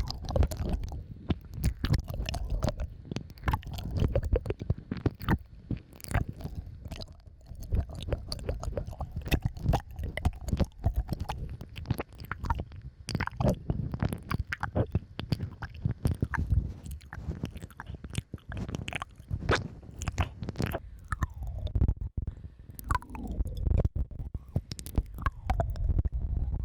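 Close-miked ASMR mouth sounds: a steady stream of quick wet clicks and smacks over a low rumble, with no pitched notes.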